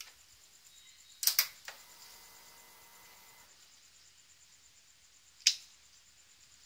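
Motorcycle ignition being switched on: a sharp double click of the key switch about a second in, then a faint steady electrical hum for about two seconds as the dash powers up, and a single sharp click of a handlebar switch about five seconds in.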